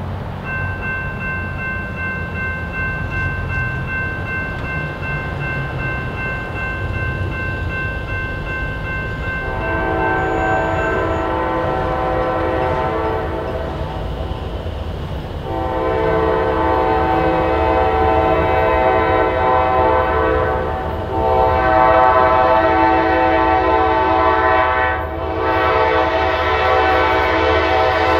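Nathan K5LA five-chime horn on a Kansas City Southern ES44AC locomotive. It sounds first as a fainter steady chord, then much louder from about a third of the way in, held in long blasts broken by brief gaps. Under it runs the low rumble of the passing train.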